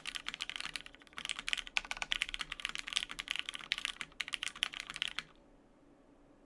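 Fast typing on a custom mechanical keyboard, a Baionlenja Gehirn with an aluminium plate, lubed Cherry MX Black linear switches and CRP R6 keycaps. It is a dense run of key clacks with a brief lull about a second in, and the typing stops about five seconds in.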